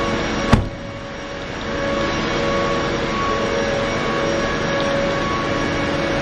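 A car door slams shut once, about half a second in, over the steady idle of the 2012 Volkswagen Tiguan's 1.4 TSI four-cylinder turbo petrol engine.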